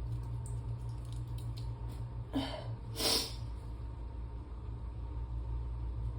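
A person sneezing once, about three seconds in: a short voiced catch of breath, then a sharp, breathy burst. A steady low hum runs underneath.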